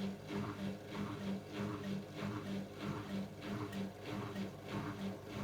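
AEG LS60840L front-loading washing machine running mid-programme: a motor hum with swishing that pulses evenly, about three times a second.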